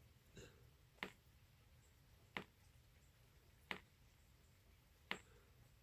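Faint sharp ticks at a steady pace, about one every second and a half, over near silence.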